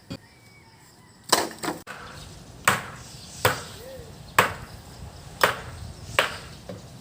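Repeated sharp blows of a tool striking wood, about seven in a row roughly a second apart, each with a short ring.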